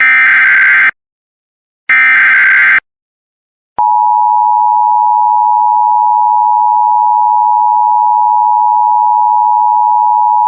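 Emergency Alert System alert opening: two roughly one-second bursts of SAME header data, buzzy digital warbling, then about four seconds in a single loud, steady electronic attention tone that holds without a break.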